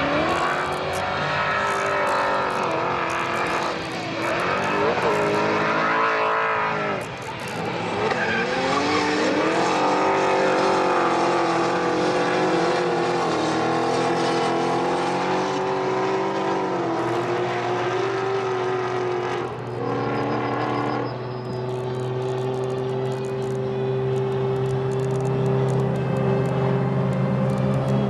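Drift cars' engines revving hard, their pitch rising and falling again and again as the cars slide through the corners, with tyre squeal. From about 20 seconds in the engine note settles into a steadier, held pitch.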